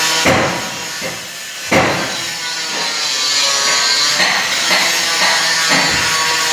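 Seat belt retractor being handled while its spiral spring is wound up by hand: two sharp knocks near the start, then steady rattling and scraping of the mechanism.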